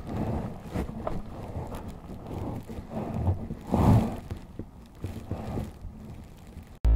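Footsteps on gravel with wind on the microphone and a few knocks from handling, the loudest just before the middle; music cuts in abruptly near the end.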